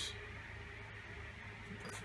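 Faint steady background hum, then one brief, sharp metallic clink near the end as loose screws are touched.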